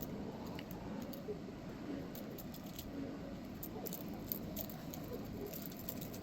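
Small, scattered clicks and light taps of a pry pick against a smartphone's internals as its flex-cable connectors are popped off, more frequent near the end.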